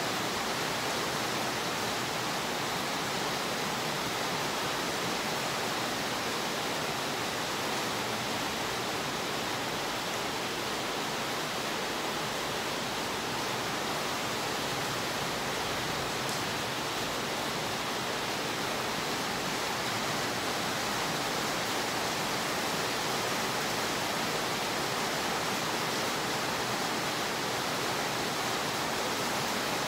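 Steady rain falling on a wet concrete yard: an even, unbroken hiss.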